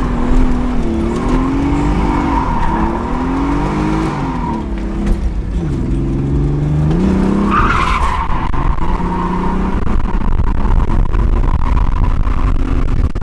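Nissan 300ZX twin-turbo V6 revving up and down while drifting, heard from inside the cabin, with the tyres squealing. The squeal eases off for a few seconds in the middle and returns sharply just before eight seconds in.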